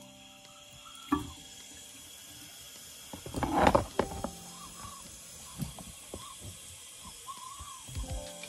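Bathroom sink faucet running, a steady hiss of water into the basin, with a few knocks and a loud scuffling burst about three and a half seconds in.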